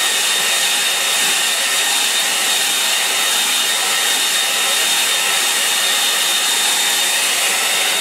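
Hand-held hair dryer blowing steadily on a wet watercolour painting to dry the wash, a rush of air with a steady high whine from its motor.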